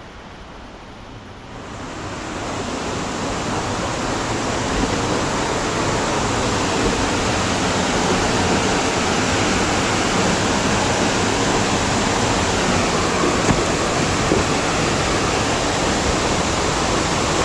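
Waterfall: a steady rush of falling water that swells over the first few seconds and then holds.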